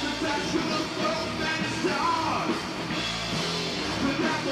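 Rock band playing a song live, with a singer's voice over the band; a lo-fi live basement recording.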